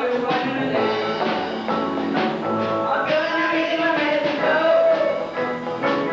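A rock and roll band playing, with a lead melody line bending in pitch over the chords and beat.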